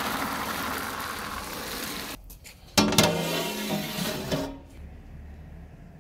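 Green peas poured from a steel bowl into a large aluminium cooking pot, a rushing patter for about two seconds. Then a metal lid is set on the pot: two sharp clangs a little under three seconds in, ringing on for over a second.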